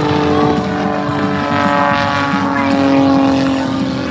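Propeller aircraft engine droning steadily, its pitch falling slightly around the middle.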